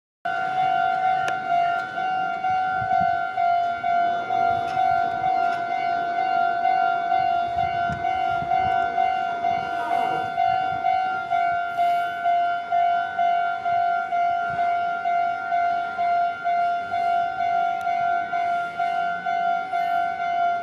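Railroad crossing's electronic warning bell ringing, a single pitched ding repeated at a steady fast rate, starting just after the beginning.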